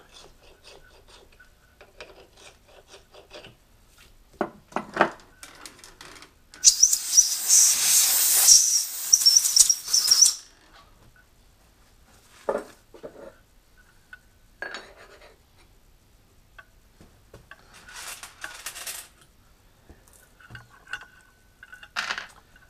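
Hand cleaning of freshly tapped holes in a cast-iron plate: light scraping and clicking of a small hand tool working the chips out of the holes. A loud spray hiss lasts about four seconds, and later a rag rubs over the metal between a few sharp knocks.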